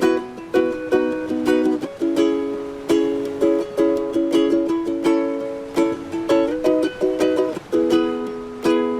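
Ukulele music: strummed chords in a steady rhythm, with a few quick melodic runs about two-thirds of the way through.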